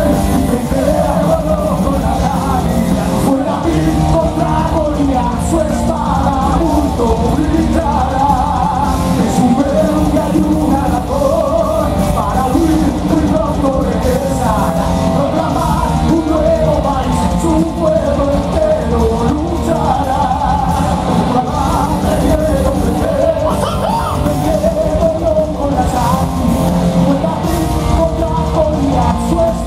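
Live heavy metal band playing loud, with male vocals sung over electric guitars, bass and drums, heard from the audience.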